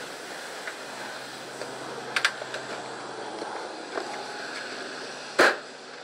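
Wooden slatted table knocking and clicking as it is handled out of a trailer, with one loud knock near the end as it is set down.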